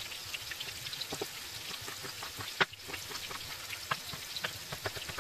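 A kitchen knife chopping tomato on a plastic cutting board: irregular taps, with one sharper knock about two and a half seconds in. Under it runs the steady sizzle of tofu frying in a pan.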